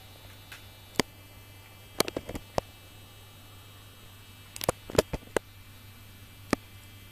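Irregular sharp clicks and taps, some single and some in short clusters, over a steady low mains hum.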